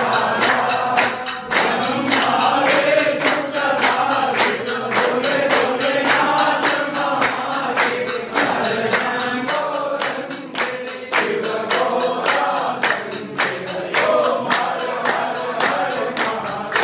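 A congregation singing a Hindu aarti hymn together, over a steady rhythmic beat of about three strikes a second.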